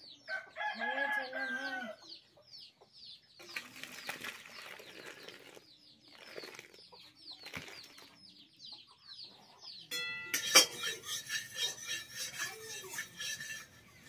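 A rooster crows once near the start, a pitched call lasting about a second and a half, while small birds chirp throughout. About ten seconds in comes a sharp metallic clatter of cookware, the loudest moment, followed by a few short clucking calls.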